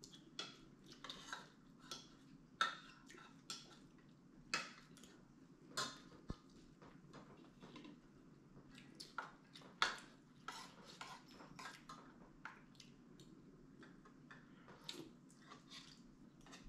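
Metal spoons clinking and scraping against ceramic bowls and plates during a meal: irregular light clinks, a few of them louder.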